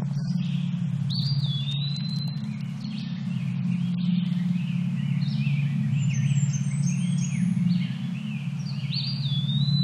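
Songbirds singing in woodland: a series of chirps and whistles, with one gliding whistled phrase about a second in that comes again near the end, over a steady low hum.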